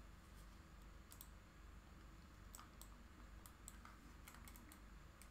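Near silence with a dozen or so faint, irregular clicks from a small handheld device being handled and pressed.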